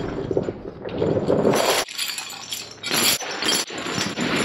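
Heavy steel tractor tire chains being dragged and dropped onto concrete. A rough scraping and rattling of links for the first couple of seconds, then a string of sharp metallic clinks and clanks, about two a second.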